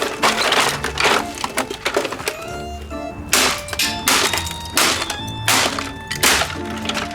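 Repeated blows smashing the plastic body of a Hoover Rewind Plus upright vacuum cleaner, each strike a sharp crack of breaking plastic, coming about every 0.7 s in the second half, over background music.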